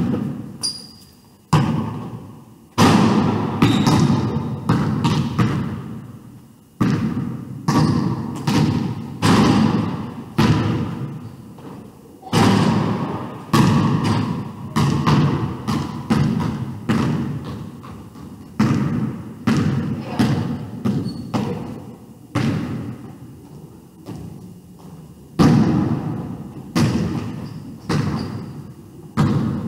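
Basketball bouncing on a hardwood gym floor: dull thuds about once a second, each ringing on in the echo of the large hall.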